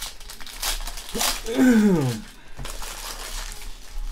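Foil trading-card pack wrappers crinkling and tearing as they are ripped open and peeled back by hand, with a short voice sound falling in pitch about a second and a half in.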